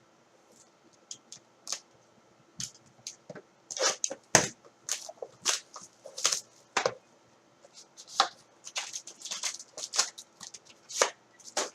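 Trading-card packaging being opened and cards handled: an irregular run of short rustles, tears and clicks of cardboard and wrapper.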